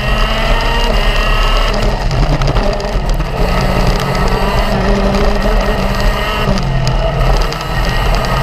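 Racing kart engine running hard at high revs through the laps, its pitch rising and falling with the throttle; the revs drop about two seconds in and again near the end before climbing once more.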